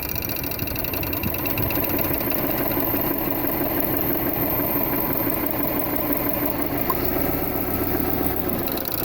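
Saab 9-2X Aero's turbocharged flat-four engine running steadily, with the noise that comes on when the AC is switched on. The noise began after a new AC idler pulley was fitted.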